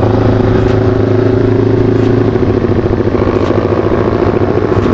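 Bored-up Yamaha Vixion's single-cylinder four-stroke engine running steadily under way, its exhaust note pulsing rapidly.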